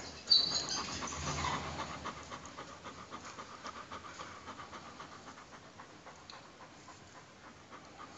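A dog panting in quick, even breaths that fade gradually, after a short sharp sound just after the start.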